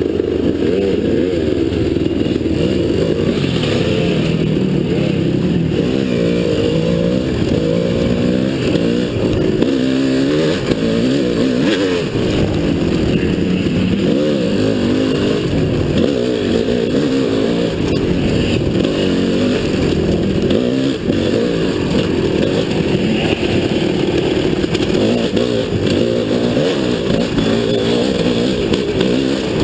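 Dirt bike engine being ridden along a trail, revving up and down continuously as the throttle is worked, its pitch rising and falling.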